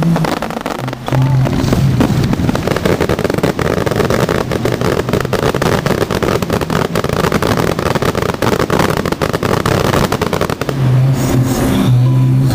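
A fireworks barrage: shells bursting in rapid, dense bangs and crackling, thinning out near the end.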